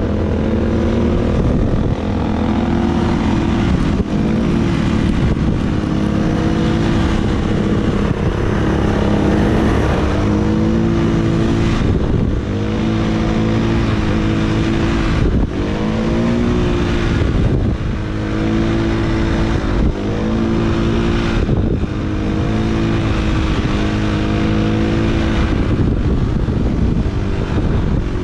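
Dirt bike engine under way, revving up and shifting through the gears again and again: each climb in pitch is cut by a short dip at the shift.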